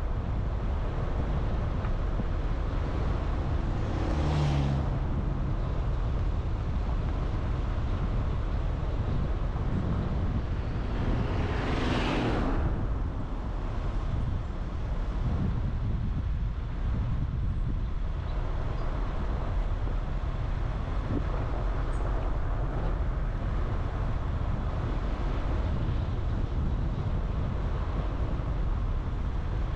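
Steady road and engine noise of a car being driven, rumbling low. It swells briefly twice, about four and twelve seconds in.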